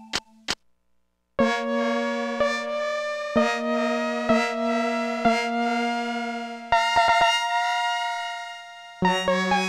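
Casio SA-10 mini keyboard playing a sustained preset tone. After two short clicks and a brief pause, a held chord is re-struck about once a second. A different chord with quick repeated notes comes in a few seconds later and fades, and a new chord with rapid notes starts near the end.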